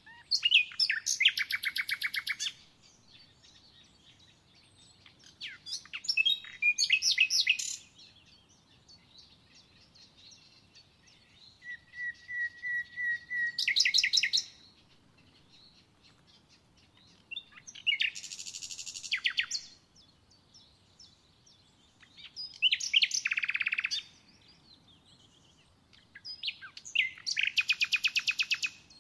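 A songbird singing six short phrases of rapid repeated notes, each a second or two long, a few seconds apart. One phrase opens with a lower run of even notes before jumping higher.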